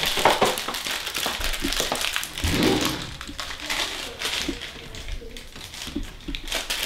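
Plastic wrapping on a roll of phyllo dough crinkling and rustling as it is handled.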